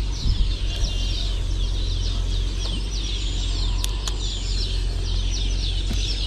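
Many birds twittering in rapid, repeated short falling chirps over a steady low rumble.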